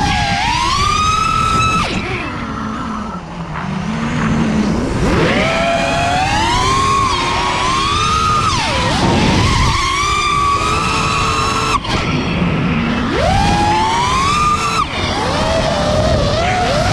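FPV freestyle quadcopter's brushless motors and propellers whining, the pitch sweeping sharply up and down with the throttle, with two brief drops in the second half.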